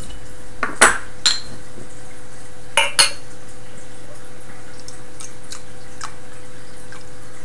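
A few sharp clinks of a glass beer bottle and a glass being handled on a table, two pairs about two seconds apart, over a steady background hum.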